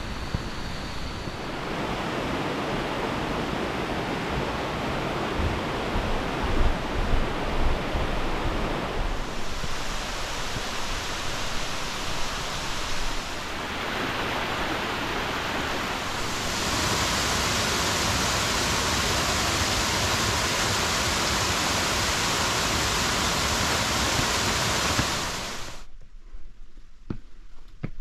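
Rushing water of a mountain stream and waterfall, a steady hiss that shifts in level and tone a few times. About two seconds before the end it drops away to quieter footsteps on rock.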